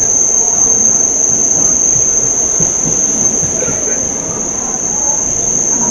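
Mumbai suburban local train rolling along a station platform, heard from inside the coach: a steady rumbling run of wheels on track. A constant high-pitched whine sits over it.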